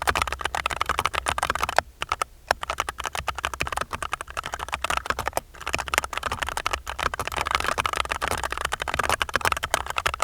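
Fast typing on a mechanical keyboard with FEKER Holy Panda V2 tactile switches, lubed springs and stabilizers and sound dampening inside: a dense run of key clacks with short pauses about two seconds and five and a half seconds in.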